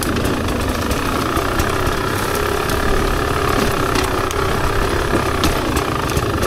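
Rieju MR300 enduro motorcycle's two-stroke engine running steadily at low revs, with a low rumble underneath and a few light clicks.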